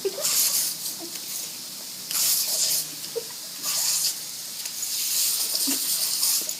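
Water spraying from a lawn sprinkler, a high hiss that comes and goes in bursts of half a second to nearly two seconds, about four times.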